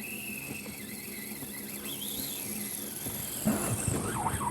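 Fishing reel drag buzzing as a big striped bass pulls line off, turning into a louder wavering squeal about three and a half seconds in.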